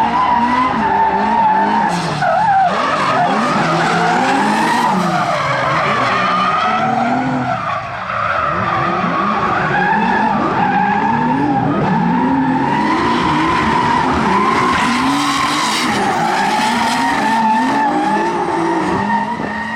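Drift cars sliding in tandem, engines revving up and down over and over, with tyres squealing loudly and wavering in pitch. The sound dips briefly about eight seconds in.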